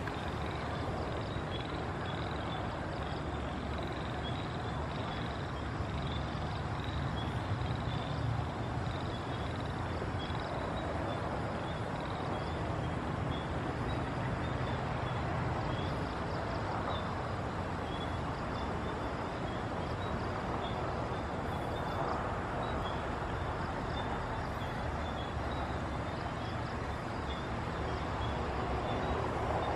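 Diesel locomotive approaching slowly from a distance: a steady low engine rumble that grows a little louder near the end. Faint, high, repeated chirps sound over it throughout.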